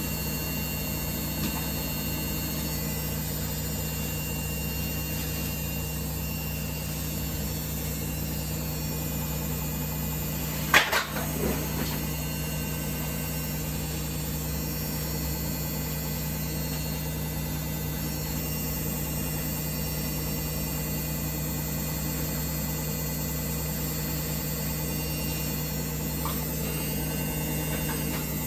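Samsung WF1700WRW washing machine running with a steady hum, with a sharp click about eleven seconds in.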